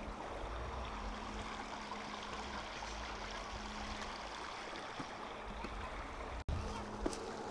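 Shallow creek flowing over stones, a steady rush of running water. The sound drops out for an instant near the end.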